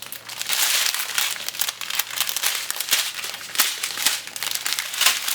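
Small plastic bags of diamond painting drills crinkling as they are handled, an irregular run of crackles.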